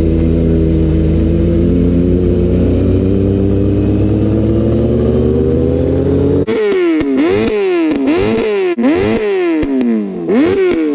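Kawasaki inline-four superbike engine with an aftermarket exhaust, first running steadily with its pitch creeping up, then, after an abrupt change about two-thirds in, being revved in about five quick throttle blips, each rising sharply and falling back more slowly.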